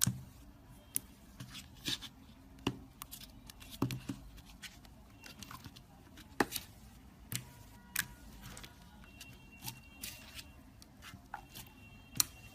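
Clear blue jelly slime squeezed and pressed with the fingers, giving irregular sharp clicks and small wet pops.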